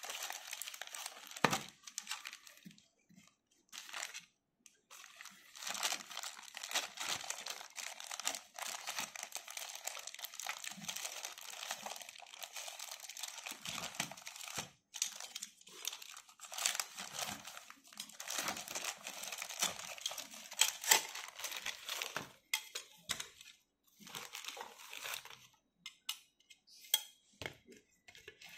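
Clear plastic bags of soldering-kit parts crinkling as they are handled, in stretches broken by short pauses, with a few sharper knocks.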